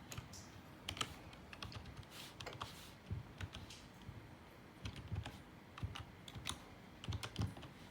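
Computer keyboard being typed on: irregular, uneven key clicks, with a few louder clicks near the start and near the end.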